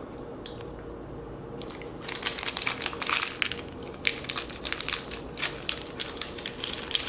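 Plastic energy-bar wrapper crinkling and crackling as it is handled and opened, starting about two seconds in with dense, irregular crackles.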